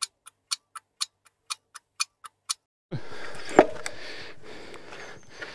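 Clock ticking, about four sharp ticks a second over dead silence, stopping after about three seconds. Then steady outdoor noise with wind comes back, with a single knock about half a second later.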